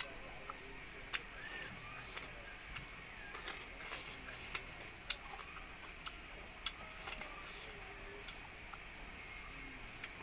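Close-miked chewing with sharp, irregular mouth clicks and smacks as a mouthful of rice and fried pork is eaten by hand, about a dozen over ten seconds, the loudest about halfway through.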